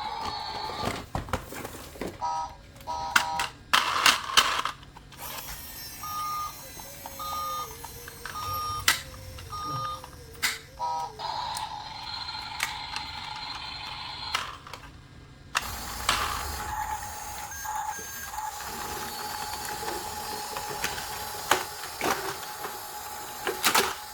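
Electronic beeps and tones from a battery-powered toy's sound chip: a run of short repeated beeps about six seconds in, then a steady electronic tone from about halfway. Sharp clicks throughout.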